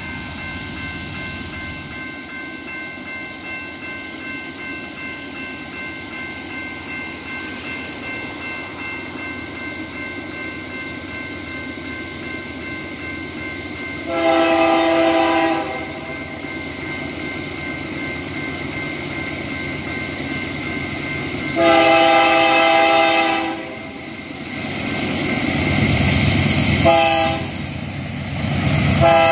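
Grade-crossing bell ringing steadily as a BNSF diesel freight locomotive approaches. The locomotive sounds its multi-chime air horn in the crossing pattern: two long blasts, a short one, and a long one starting near the end. The locomotive's engine rumble grows louder over the last few seconds.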